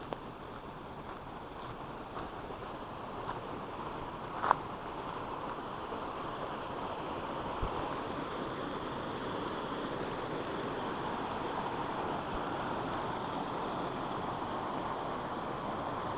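Creek water rushing steadily over a small fall, slowly growing louder, with a single short click about four and a half seconds in.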